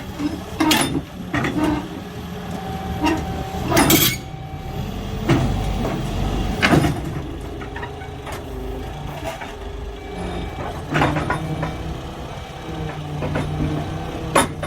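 A heavy engine running steadily, with several sharp metallic knocks and clanks over it; the loudest knock comes about four seconds in.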